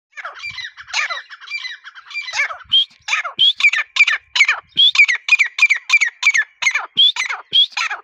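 Grey francolin (teetar) calling: a long run of repeated loud notes, softer and more run-together at first, then clear separate notes about three a second from about three seconds in.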